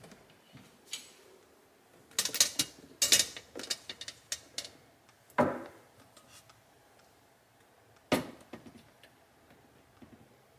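Handbags being moved about on the glass shelves of a display cabinet: a quick run of clicks and taps about two seconds in, then two separate knocks.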